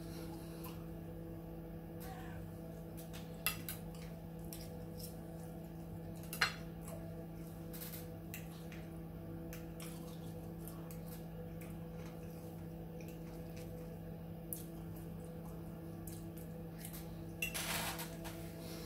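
Fork and knife clinking and scraping on a dinner plate in a few separate knocks, the sharpest about three and a half and six and a half seconds in and a short cluster near the end, over a steady low hum.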